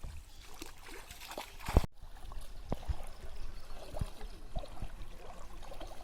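Water trickling and splashing, with scattered soft knocks; the loudest knock comes a little under two seconds in.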